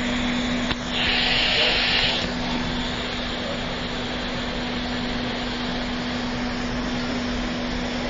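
Steady machine-like hum over even background noise, with a brief louder hiss about a second in.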